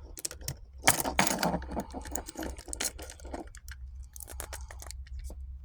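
Metal keys clicking and scraping as a key from one gun lock is worked into the keyhole of another gun lock, with light jingling of the keys.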